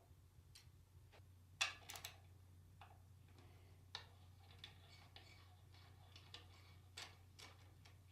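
Light, irregular clicks and taps of hand tools on transmission parts as the parking pawl assembly's bolts are worked out, over a low steady hum.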